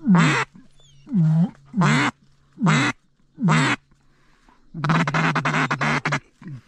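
Mallard duck call blown close by: five loud single quacks, then a fast run of quacking chatter about five seconds in, calling to circling ducks.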